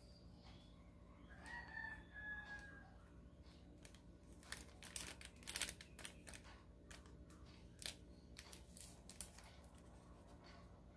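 A rooster crows faintly about a second and a half in, one short call. From about four seconds in comes a run of light clicks and plastic rustling as cornstarch is scooped with a plastic spoon from its bag into a bowl.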